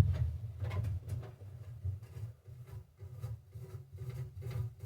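Irregular light clicks and knocks, like small parts and tools being handled, over a steady low hum.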